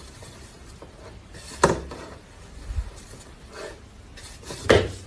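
Two sharp knocks, one about a second and a half in and a louder one near the end, with a fainter one between, over a steady low hiss of room noise.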